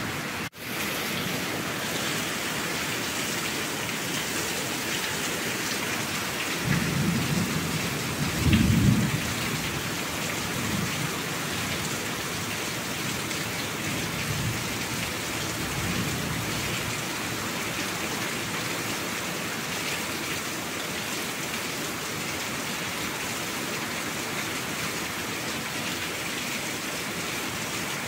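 Steady heavy rain with low rumbles of thunder, the loudest about seven and nine seconds in and fainter ones later. A brief drop-out comes about half a second in.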